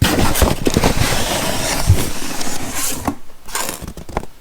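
Packing material in a shipping box rustling and crinkling loudly as it is dug through by hand, for about three seconds, followed by a few light knocks of items being handled.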